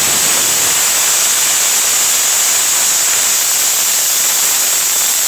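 Aluminium pressure cooker whistling: its weighted valve lifts and a loud, steady, high-pitched hiss of steam escapes. It is the second whistle, the sign that the cooker has reached full pressure and the curry is cooked.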